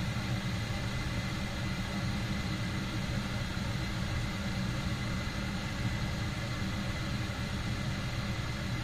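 Gas furnace running with its burners lit: a steady low rush with a hiss over it, the main burner gas pressure turned down on the Honeywell valve.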